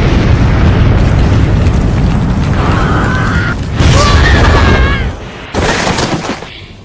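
Anime fight sound effects: a loud, deep booming rumble of a huge punch blast, with a wavering high cry in the middle. A short sharp crash of impact comes about five and a half seconds in, and the rumble dies away near the end.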